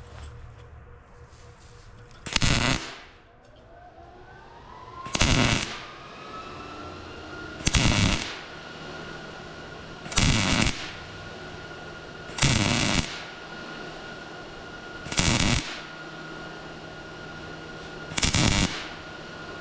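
MIG welder laying a row of spot welds: seven short crackling bursts of the arc, each about half a second long and roughly two and a half seconds apart. A faint steady whine sits underneath.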